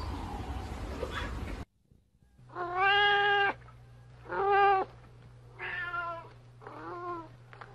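Domestic cat meowing: four long, drawn-out calls in a row, each about half a second to a second long, after a noisier first second or two with fainter meows. A low steady hum runs under the calls.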